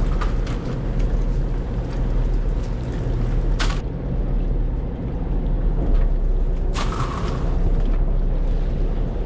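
Boat engine running steadily with a low, even hum, with two sharp knocks on deck about a third and three quarters of the way through.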